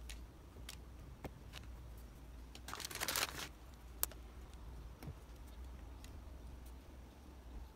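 Faint handling sounds of chocolate pieces being set onto cookie dough on parchment paper: scattered light taps, a short paper rustle about three seconds in, and a sharp click about a second later.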